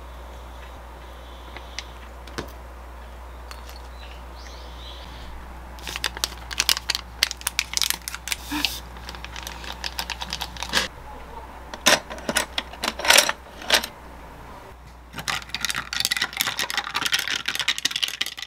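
Light, quick clinks and taps from a stirrer knocking against a drinking glass as powdered kombucha is stirred into water, coming in bursts after a quiet first few seconds, with the densest run near the end.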